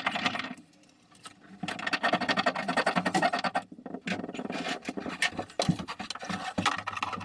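Hand screwdriver working a screw into a mount by hand, giving rapid scratchy clicking in two runs, the first about a second and a half in and the second from about four seconds.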